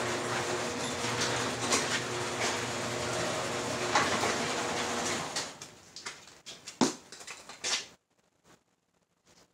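Garage door opener running as the sectional garage door rolls up: a steady motor hum with clatter from the door. It stops about five seconds in, followed by a few separate knocks and steps, the loudest near seven seconds.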